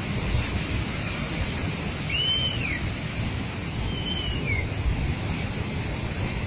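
Steady low rushing noise of a muddy landslide flow pouring down the valley, mixed with wind on the microphone. Two short whistles rise and fall, about two and four seconds in.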